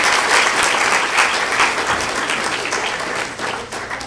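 Audience applauding, a dense patter of many hands clapping that gradually thins out into scattered claps near the end.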